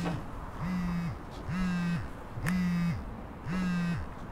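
Mobile phone ringing: a buzzing ring tone that pulses about once a second, each pulse about half a second long.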